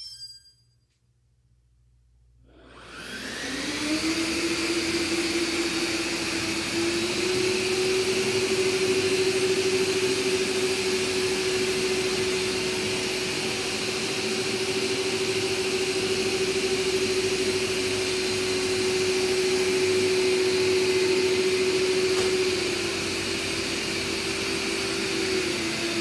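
Six Samsung Powerbot R9350 robot vacuums starting up together: a short electronic beep, then about three seconds in their suction motors spin up into a loud steady rush of air with a humming whine. The whine steps up slightly in pitch a few seconds later and drops back near the end.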